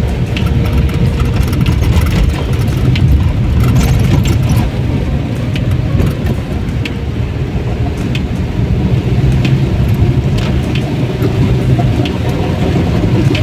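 Car driving in heavy rain, heard from inside the cabin: a steady low rumble of engine and tyres on the wet road, with rain spattering on the windscreen and roof as scattered sharp ticks.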